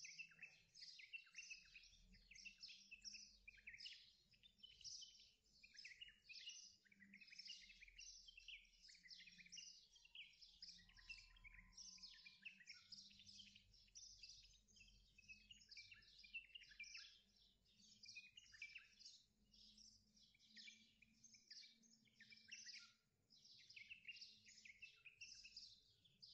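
Faint, continuous chirping of many small birds, a dense overlapping chorus of quick chirps.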